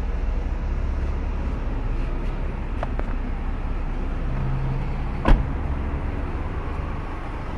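A Mitsubishi Galant's engine idling steadily, run to test the idle after its throttle body has been cleaned. About five seconds in, a car door shuts with one sharp thud.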